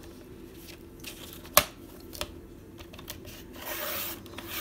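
A sharp click about a second and a half in, then a short rasping hiss near the end as a Fiskars sliding paper trimmer's blade is drawn through a sheet of double-sided cardstock, cutting it.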